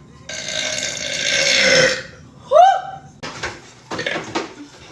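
A woman's long, rough burp lasting about a second and a half, growing louder before it stops abruptly. A short sound with a pitch that rises and falls follows about half a second later.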